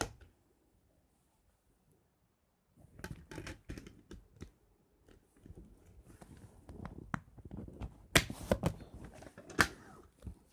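A CD case being handled and opened: a run of plastic clicks, taps and rustles starting about three seconds in, with two sharp clicks near the end.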